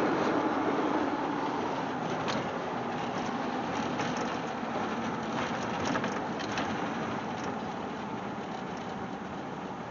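Jeep Grand Wagoneer's AMC 360 V8 and road noise heard from inside the cab while driving, the sound gradually easing as the truck slows. A few sharp clicks come about two seconds in and again around six seconds in.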